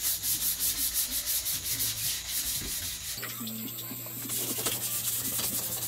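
Wet sandpaper rubbed back and forth over the painted steel inside a 2004 Toyota Commuter van, about three strokes a second, sanding chipped paint back to the undercoat. The strokes become less distinct about halfway through.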